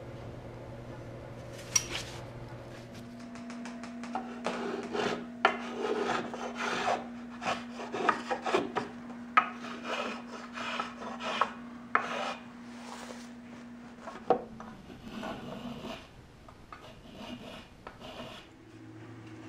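A wooden bass bar rubbed back and forth against the inside of a double bass top, wood scraping on wood in quick uneven strokes, as the luthier fits the bar to the top's curve. The strokes start about four seconds in, run for about ten seconds, and give way to softer, fainter scratching near the end.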